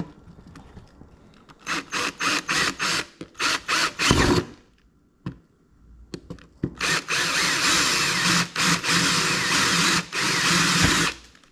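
Power drill with a 9/32-inch bit drilling out the mounting divots for the windshield clamps. It goes in a series of short trigger pulses, then, after a pause, a longer steady run of about four seconds.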